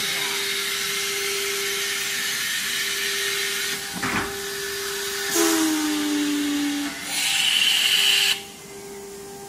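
Pneumatic loading mechanism of an automatic-loading CNC router, moving a board onto the bed with vacuum suction cups. Steady machine hiss and hum, a sharp knock about four seconds in, a falling motor whine, then a louder burst of air hiss that cuts off suddenly near the end.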